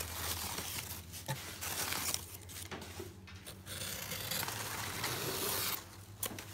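Crumpled newspaper packing rustling and crinkling in uneven bursts as a hand digs through it in a styrofoam-lined shipping box, over a low steady hum.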